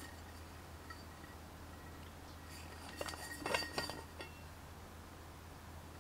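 A metal water bottle handled and lifted out of a cardboard gift box, with a short run of light clinks and knocks about three to four seconds in, over a low steady hum.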